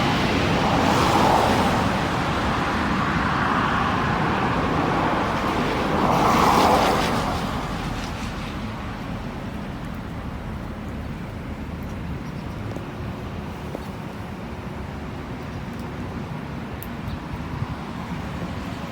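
Road traffic: one vehicle passes about a second in and another about six to seven seconds in, then a steadier, quieter traffic hum.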